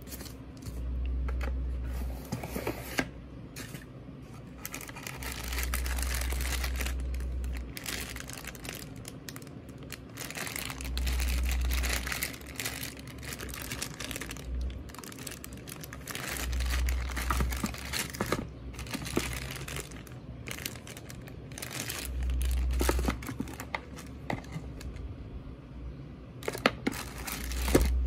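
Plastic packaging crinkling and rustling as a foam sheet and clear plastic bags of cables are handled, with scattered clicks and knocks. A low rumble comes and goes every five or six seconds.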